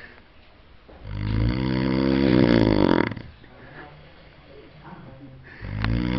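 Loud snoring: one long snore about a second in lasting some two seconds, and the next beginning near the end.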